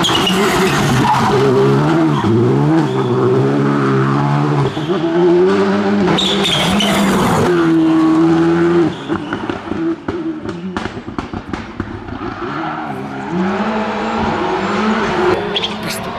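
Rally cars at full stage speed, starting with a Skoda Fabia Rally2: engines revving hard, pitch climbing and dropping with each gear change. About nine seconds in, the engine note gives way to a run of short sharp cracks, then another car's engine winds up again.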